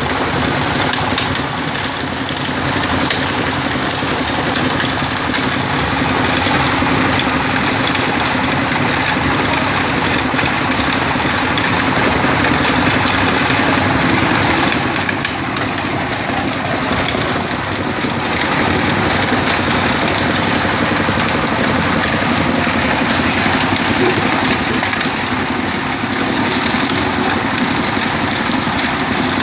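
Stone-crushing machine running, grinding rock into fine sand: a loud, steady engine drone under a dense hiss of crushed grit.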